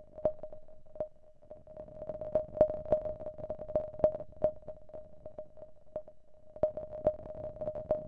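Synthesized rolling tin can from a Pure Data patch: a steady ringing tone with irregular clicks and knocks as the can rolls. It thins out about a second in, then the knocks pick up again.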